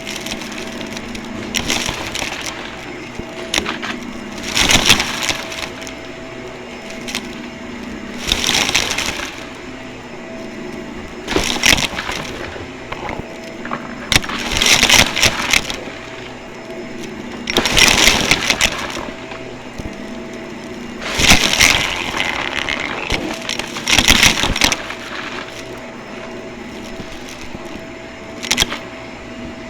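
Vacuum cleaner motor running with a steady hum, and a loud rush of noise every three to four seconds, in rhythm with strokes of the vacuum over the floor.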